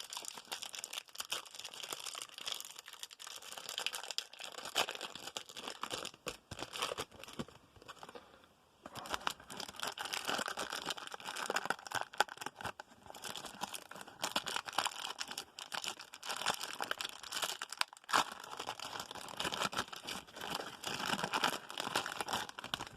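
Wrapper of a Donruss baseball card pack crinkling and tearing as it is opened, with a short lull about eight seconds in.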